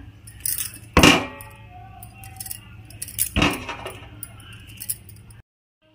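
Hands tearing dough into small balls in a stainless-steel bowl, with light clinks and two sharper knocks against the metal, about a second in and about three and a half seconds in, each ringing briefly.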